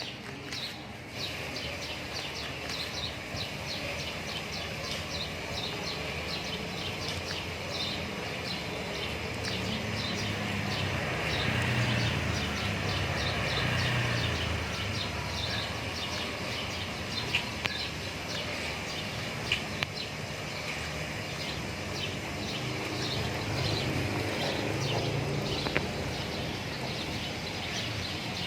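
Outdoor ambience of birds chirping repeatedly, with a low rumble that swells and fades near the middle and again later, and a few sharp clicks.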